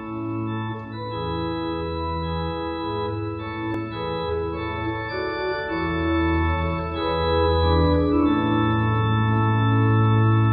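Organ playing a hymn tune in sustained chords, the introduction to the hymn, the last chord held longest and loudest near the end.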